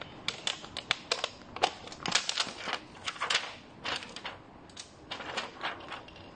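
Thin clear plastic sheet crackling and crinkling as it is flexed and pulled by hand, in irregular sharp clicks.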